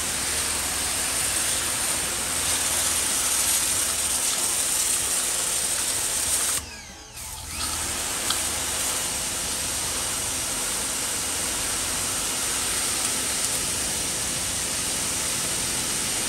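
Topshak TS-HPW2 1600 W electric pressure washer running: the motor and pump hum under the steady hiss of the water jet striking a concrete walkway. The sound cuts out for about a second near the middle, then starts again.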